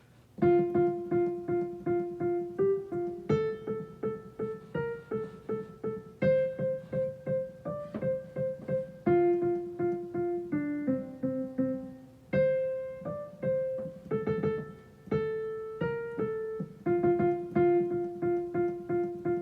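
A keyboard plays a simple, repetitive melody in 4/4, one note at a time with many repeated notes, and the first beat of each measure is stressed.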